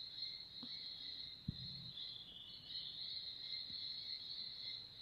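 A faint, steady, high-pitched insect chorus. There is a single soft low thump about one and a half seconds in.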